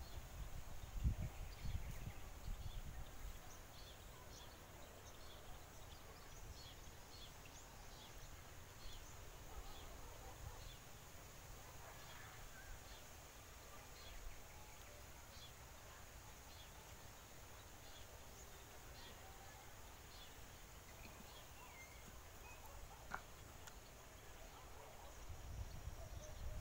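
Faint rural outdoor ambience: scattered short, high bird chirps over a low rumble, with a few louder low thumps in the first couple of seconds.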